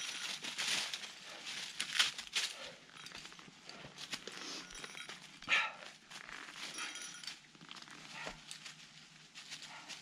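Dry fallen leaves crunching and boots scuffing on rock during a scramble up a leafy rock ledge, in irregular sharp bursts, loudest about two seconds in and five and a half seconds in. A Shetland sheepdog makes a few brief sounds while being helped up the rock.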